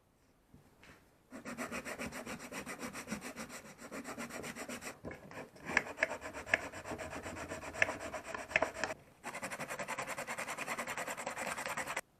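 Coarse 80-grit sandpaper worked back and forth over the welded plastic of a refrigerator door handle, smoothing the repair. Quick, even rubbing strokes start about a second in, break off briefly near the nine-second mark, resume, and stop abruptly near the end.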